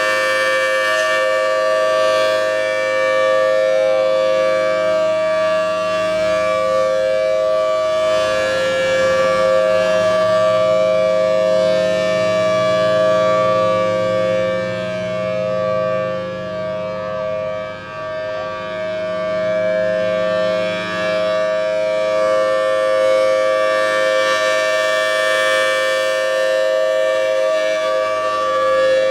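Federal Signal Thunderbolt 1000T outdoor warning siren sounding its steady Alert signal, a held two-tone chord from its 5/6 port ratio rotor. The sound fades a little about halfway through as the rotating siren head turns away, then swells back a few seconds later.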